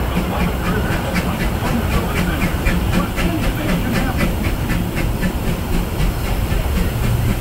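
Steam locomotive E.P. Ripley and its train running, heard from the open passenger car right behind the tender: a steady rumble and steam hiss with a quick regular beat of short strokes.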